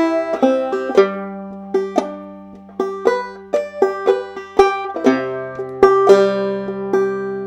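Five-string banjo played clawhammer style: a phrase of plucked single notes and brushed strings with the thumb sounding the fifth-string drone, the last notes left ringing out near the end.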